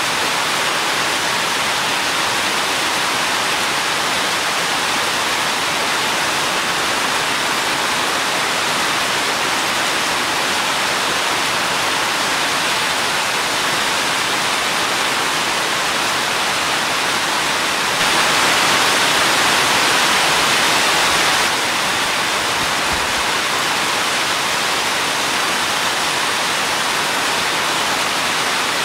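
Steady rain, an even, dense hiss with no single drops standing out. It gets slightly louder for about three seconds, some 18 seconds in.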